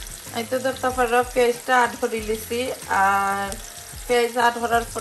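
Background music carrying a pitched melody, with a held note about three seconds in, over the faint sizzle of chopped onions and bay leaves starting to fry in oil.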